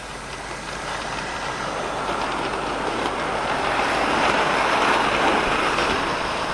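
Hornby OO-gauge model steam locomotive and three coaches running along model track: a steady whirring rush of motor and wheels that grows louder as the train comes past, loudest about four to five seconds in, then eases a little.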